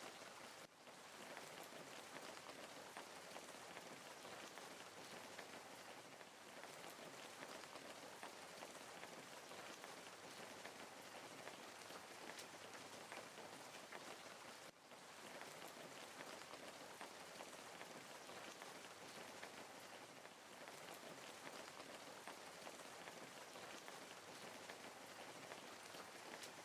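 Faint wood fire crackling: a steady hiss dense with small pops and snaps, dipping briefly twice, about a second in and about halfway through.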